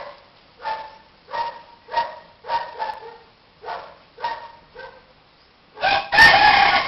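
A canine giving a run of short, high yelps, roughly one or two a second, then a louder, longer call about six seconds in.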